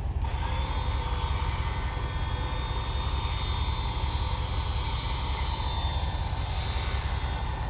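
Electric winch motor whining steadily as it pulls, starting abruptly just after the start, over the low, steady rumble of an idling Jeep Wrangler JKU engine.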